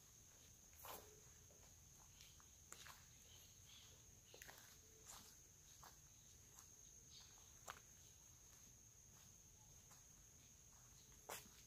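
Faint footsteps on a dirt lane strewn with dry leaves and twigs, an occasional crunch every second or two, over a steady high-pitched insect drone.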